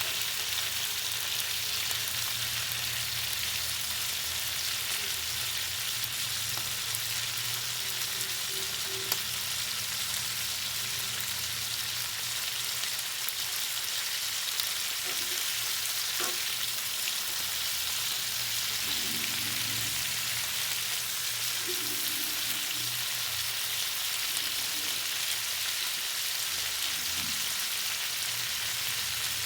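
Food frying in hot oil: a steady sizzle with scattered crackling pops, one sharper pop about nine seconds in.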